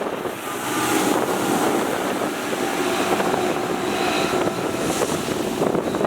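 Wind buffeting the microphone over a steady motor hum.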